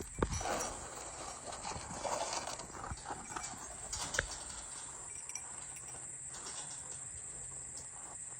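A cow's hooves stepping and shuffling on the ground, with a few sharp knocks and some rustling; the loudest knocks come just after the start and about four seconds in.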